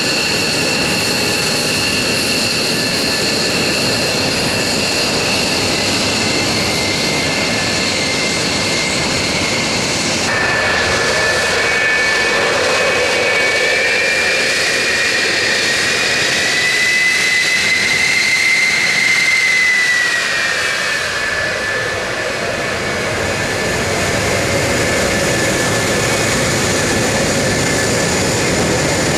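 Fighter jet engines running at ground idle, a steady high whine. About ten seconds in the sound changes to the twin J79 turbojets of a McDonnell Douglas RF-4E Phantom, whose whine rises in pitch for a few seconds and then falls back as the jet taxis.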